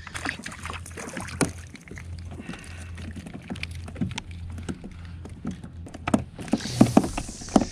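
Small irregular clicks and knocks of a kayak angler handling a small mackerel hooked on a metal lure, over a low steady hum. Near the end a hiss rises and a few heavier knocks sound.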